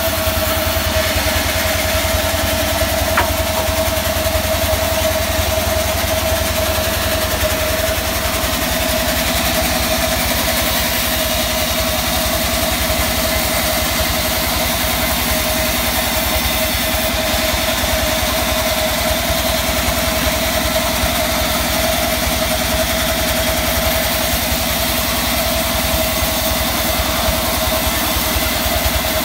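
Sawmill band saw running free between cuts: a steady machine drone under a constant high whine, with no change in pitch or load.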